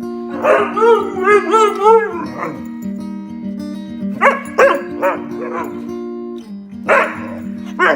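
Siberian husky yowling in a string of howl-like cries that rise and fall, then giving several short barks, over background music.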